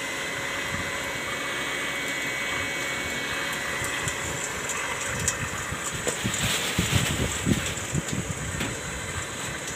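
Solar-powered borewell pump system running, with water rushing through the delivery pipe and drip-irrigation filter as a steady hum and a thin high whine. A few irregular low knocks come in from about six seconds in.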